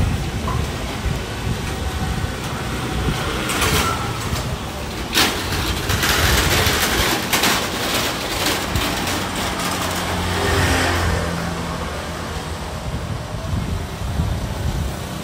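Street traffic of motor scooters passing close by, engines running steadily. A sharp knock sounds about five seconds in.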